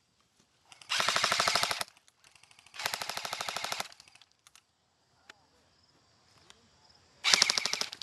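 Airsoft guns firing on full auto: three rapid bursts of about a second each, the last starting near the end.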